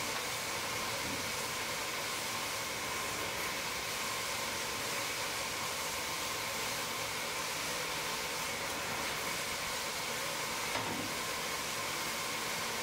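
Steady machine noise: an even hiss with a faint constant hum, and one small knock about eleven seconds in.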